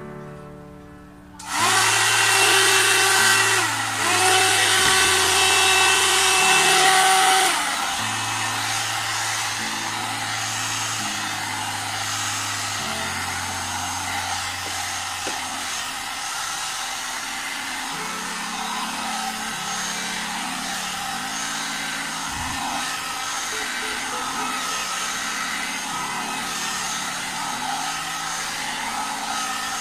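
One-step hot air brush (hair dryer brush) blowing, switched on about a second and a half in with a steady rushing whir. It runs loud for about six seconds, dips briefly once, then carries on at a lower, even level.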